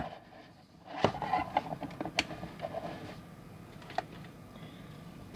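Hands handling small objects on a tabletop: a sharp click at the start, then a few scattered light taps and clicks.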